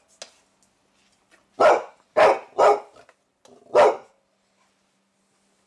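Dog barking: four loud, short single barks, three in quick succession from about a second and a half in and a fourth near four seconds.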